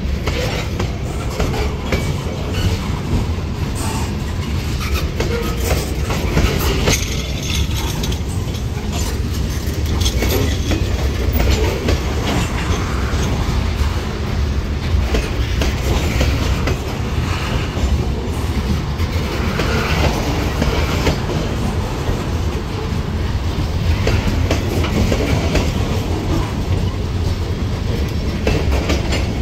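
Loaded CSX covered hopper cars of a grain train rolling past at close range: a steady rumble of steel wheels on rail, with scattered clacks and knocks as the wheels cross rail joints.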